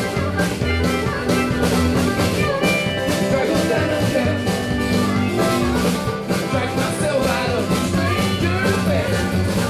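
Live band playing a song with a steady beat.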